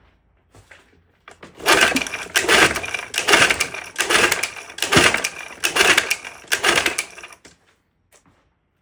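1969 Johnson 9.5 hp two-cylinder two-stroke outboard cranked over by hand on its recoil starter rope for a compression test: a run of harsh rasping pulls, roughly one a second, starting about a second and a half in and stopping after about six seconds.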